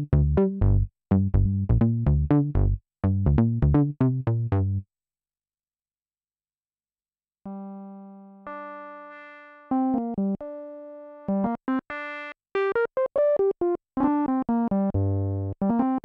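Dave Smith Mopho x4 analog synthesizer played direct, with no effects. It starts with a sequenced patch of fast repeated notes with a heavy low end, which stops about five seconds in. After a couple of seconds of silence, single held notes fade away, and then a line of notes is played on a bass patch.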